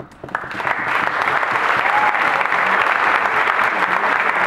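Audience applauding: the clapping swells within the first second and then holds steady.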